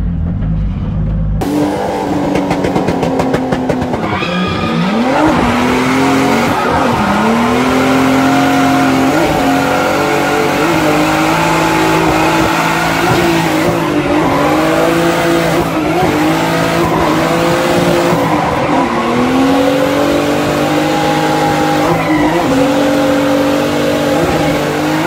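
Drift car engine revving hard, heard from inside the cabin, its pitch rising and falling over and over with the throttle, over loud tyre squeal and road noise. A low engine rumble comes first, cutting to this about a second in.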